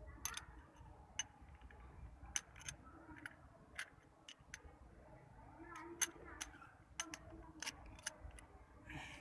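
Irregular sharp metallic clicks and taps of a tool-kit wrench on the spark plug as it is tightened into a motorcycle's cylinder head.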